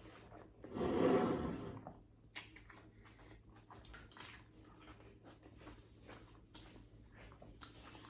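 Close-up eating sounds of snow crab being picked and chewed: a brief, louder wet sound about a second in, then many faint soft clicks and squishes.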